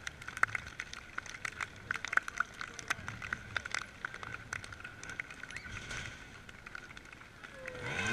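Spectators clapping along, sharp nearby hand claps several times a second over the wider crowd. Near the end a trials motorcycle's engine starts to rev.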